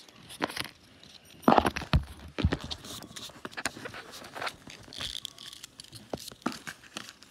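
Hands handling and crinkling paper and plastic wrapping: irregular rustles, crinkles and small clicks, loudest about one and a half seconds in.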